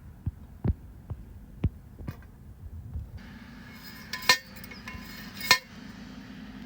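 Metal parts of a homemade toy cannon clinking and knocking: several light taps, then two sharper ringing metallic strikes about a second apart.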